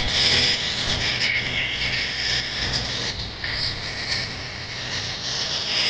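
Trance music played loud through a soundbar and subwoofer, heard in the room, with a steady bass line under a bright, hissy top.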